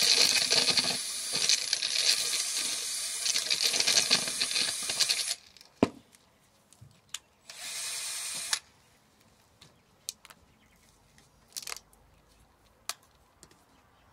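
Cordless drill spinning an ear of corn inside a homemade PVC-pipe corn sheller studded with bolts, with kernels rattling as they are stripped off. It runs for about five seconds and stops suddenly, gives one more short run of about a second a couple of seconds later, and then only scattered light clicks follow.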